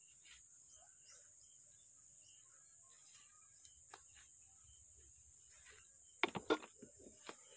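Quiet garden ambience with a steady high-pitched insect drone, typical of crickets, and faint scattered bird chirps. About six seconds in there are a few sharp, loud rustling or knocking noises close by.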